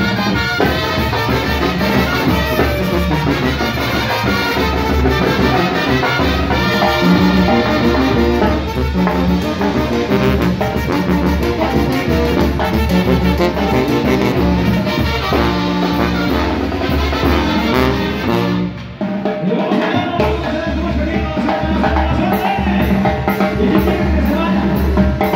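Live Mexican banda music in chilena style: trumpets and trombones playing over a sousaphone bass line, with timbales and drum kit. About 19 seconds in the band briefly drops out, then comes back in.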